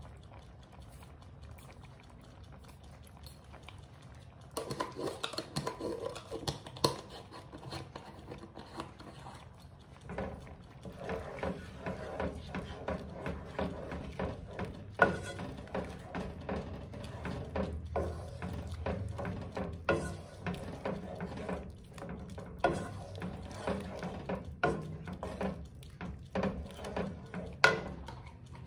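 Wooden spoon stirring a pot of thick lentil soup, with wet churning and many short knocks and scrapes against the pan, starting after about four seconds of quiet.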